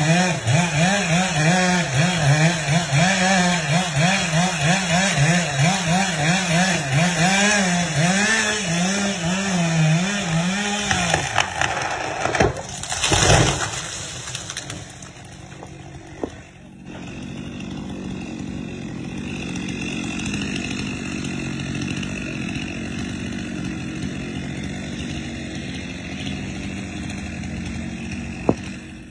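Chainsaw running at high revs, its pitch wavering up and down, then a loud rushing burst about halfway through, after which it settles to a lower, steady running sound. A single sharp click comes near the end.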